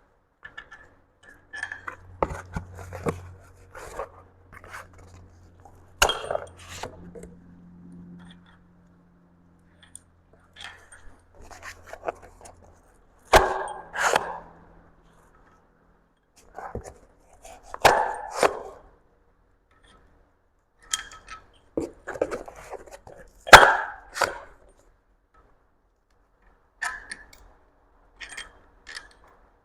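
Steel head bolts and hand tools clinking and knocking on a Mazda B-series engine as the head bolts are pulled out and set aside, in separate clusters with pauses between them, the loudest about three-quarters through. A low steady hum runs through roughly the first twelve seconds.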